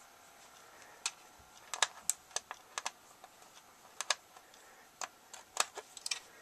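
Irregular sharp clicks of small screwdriver bits and their plastic case being handled while a bit is picked out and tried: about a dozen clicks, unevenly spaced.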